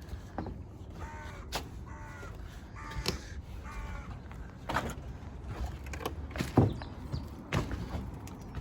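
A bird calling three times with short harsh calls in the first few seconds, followed by several sharp knocks, the loudest about six and a half seconds in.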